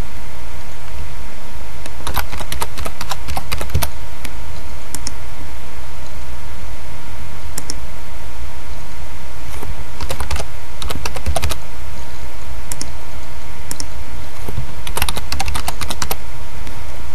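Typing on a computer keyboard in three short bursts a few seconds apart, with a few single clicks between them. A steady hiss and a faint hum run underneath.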